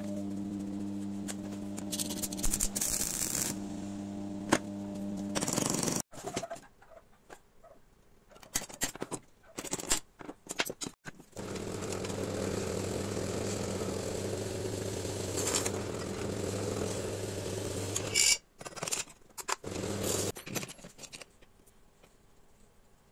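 Drill press motor running while it drills a metal plate held in a drill-press vise, for about seven seconds in the middle. Before it comes another steady motor hum and scattered metal knocks, and a few sharp clicks follow it.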